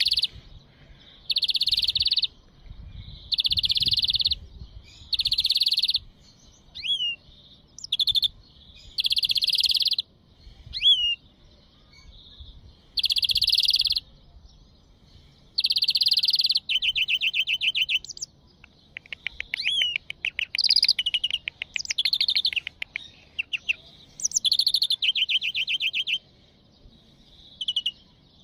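European greenfinch singing: a run of loud buzzy wheezing notes, each just under a second long, alternating with rapid twittering trills and short rising whistles. The second half is mostly fast trills.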